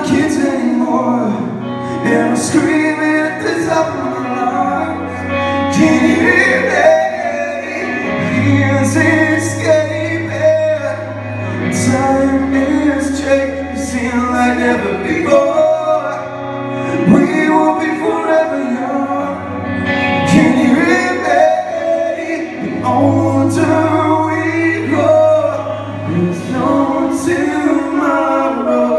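Pop-punk band playing live: a male singer singing over electric guitar, bass and drums, with regular cymbal hits.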